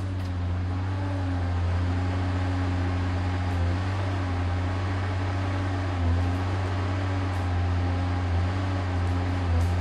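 Diesel engine of a Neuson Ecotec 242 HVT tracked harvester running steadily as its crane and harvester head work. The engine note dips briefly in pitch a few times.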